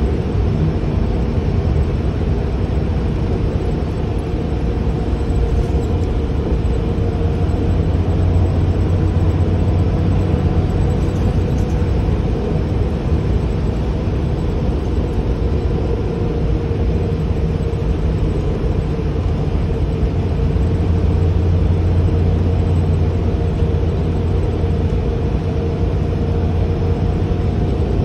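Gillig Advantage transit bus heard from inside the passenger cabin while moving: a steady engine and road rumble, swelling slightly twice, with a faint steady hum above it.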